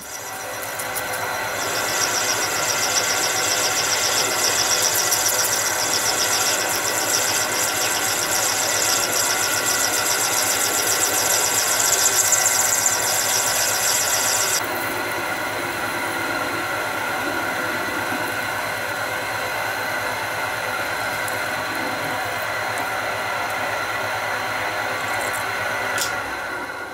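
Metal lathe parting off a steel bar with a carbide insert in a homemade parting tool holder. A high-pitched cutting squeal sits over the lathe's steady running from about two seconds in and stops about halfway through. The lathe runs on steadily after that and fades out near the end.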